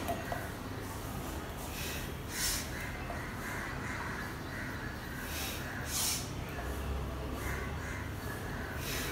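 A man breathing out hard through the mouth while doing slow push-ups on push-up bars: two short, hissy exhales about three and a half seconds apart, over a steady low hum.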